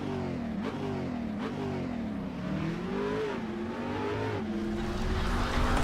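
An engine revving, its pitch rising and falling several times.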